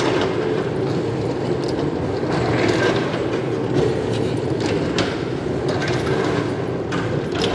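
Hand-pumped rail trolley (handcar) rolling along the track as its handle is pumped up and down: a steady rumble of steel wheels on the rails, with a few sharp clicks and clanks.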